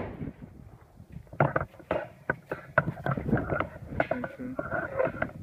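Wind buffeting the camera microphone, with irregular knocks and rumbles of handling noise as the camera is swung around.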